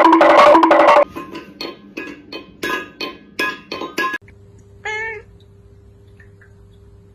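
Music: a loud, quickly repeated melody for about a second, then a run of short struck notes like a wood block or xylophone. After this, about five seconds in, a single short cat meow.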